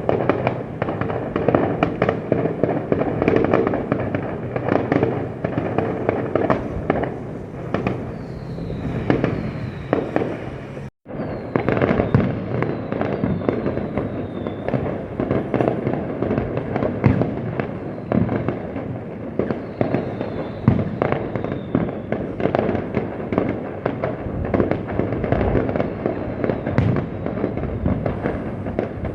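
Fireworks going off in a continuous rapid barrage of bangs and crackles, with a few faint falling whistles. The sound cuts out for an instant about eleven seconds in.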